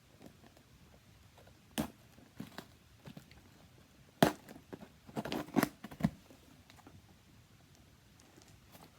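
A cardboard shipping box being cut open with a key: scattered scrapes and rips of tape and cardboard, with a sharp crack about four seconds in and a burst of tearing just after.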